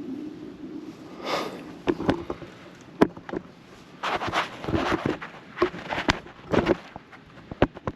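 Irregular handling noises from working on the car's exhaust hangers: a string of short clicks and knocks with rustling between them, and a low hum that fades out about a second in.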